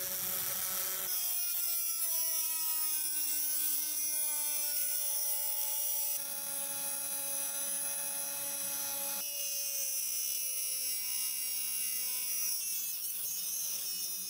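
Rotary tool with a thin abrasive cut-off disc cutting grooves into a steel hammer head. It makes a high whine over a grinding hiss, and the pitch sags slowly as the disc bites into the metal. The sound jumps abruptly several times.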